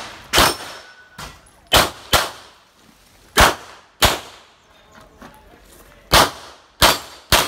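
Gunshots fired in an uneven string, singles and quick pairs, about eight in all, with metallic ringing that fits bullets striking steel targets.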